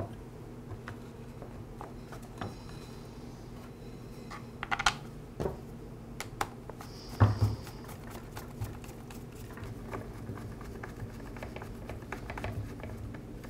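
Plastic rear air-filter cover being fitted back onto a string trimmer engine and fastened with a screwdriver: scattered small clicks, with a few light knocks about five and seven seconds in.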